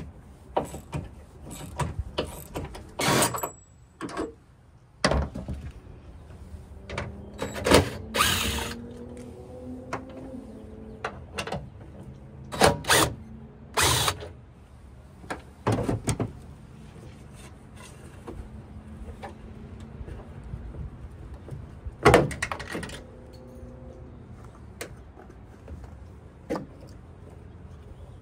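Hand ratchet wrench clicking in short runs as bolts are worked loose on a pickup truck's bed and taillight mount. Scattered sharp clanks and knocks of metal tools and parts come between the runs, the loudest about 8, 13, 14 and 22 seconds in.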